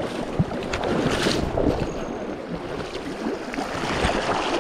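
A hooked trout splashing and thrashing at the surface of a river, over the steady rush of the current, with a louder splash about a second in.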